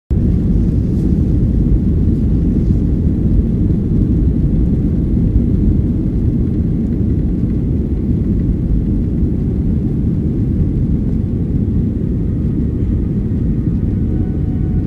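Jet airliner heard from inside the cabin while it rolls along the ground: a loud, steady low rumble of engines and wheels.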